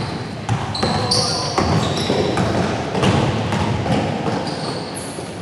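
Basketball game on a gym floor: a ball is dribbled, and sneakers squeak several times in short, high chirps as players cut and run.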